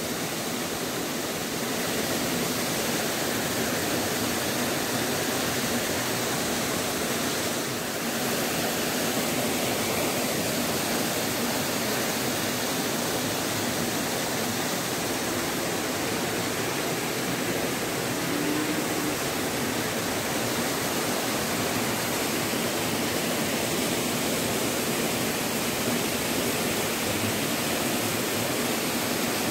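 Shallow rocky stream rushing steadily over stones: a constant, even noise of flowing water.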